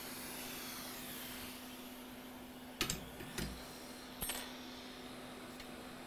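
Hot air rework station blowing with a steady hiss that dies away about a second and a half in. Then come three sharp clacks as tweezers and tools are set down on the bench, over a low steady hum.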